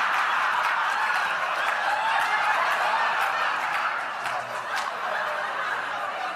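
Large audience laughing hard, a dense wash of laughter that eases off a little in the second half.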